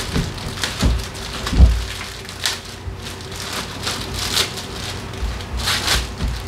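Irregular clicks, clinks and knocks of hand work on scooter drivetrain parts, with two heavier thumps in the first two seconds and a faint steady hum underneath.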